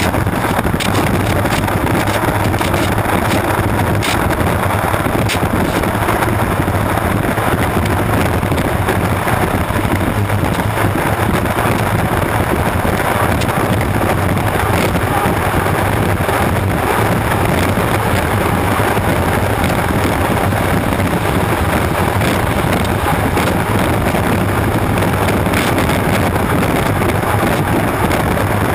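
Onboard sound of a turbine-powered unlimited hydroplane running flat out on the water: a loud, steady, dense rush of engine and water noise, with wind buffeting the microphone and scattered short crackles.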